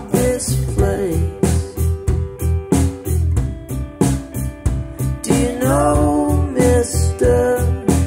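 A song played back through Buchardt S300 bookshelf speakers: acoustic-style guitar over a steady deep bass beat, with a voice singing near the end.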